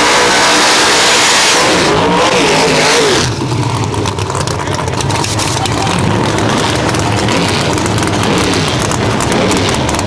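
Drag race car engine at full throttle, loud and roaring, dropping off about three seconds in to a quieter, crackling engine sound.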